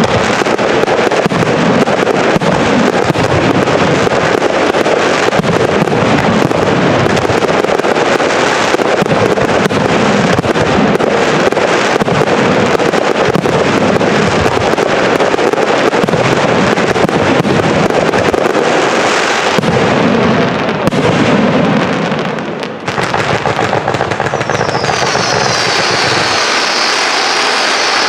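Loud fireworks display: a continuous barrage of booming shell bursts and crackle. It dips briefly about three-quarters of the way through, and near the end several high whistles fall in pitch.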